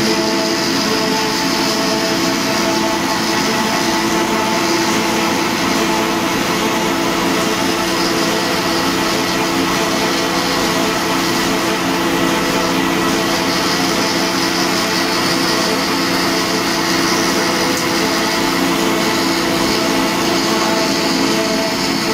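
Two-stage plastic raffia recycling extruder line running: a loud, steady machine drone made of several constant hums with a high hiss over them.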